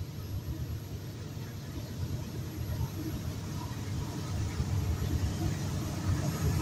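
BNSF diesel locomotive leading a loaded coal train on approach, its low rumble growing steadily louder as it nears.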